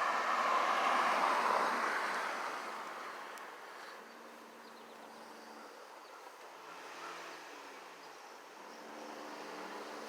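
Predator 212cc single-cylinder engine of an ATV running as the machine pulls away, its sound fading over the first few seconds, then a faint engine note rising and falling in pitch in the distance.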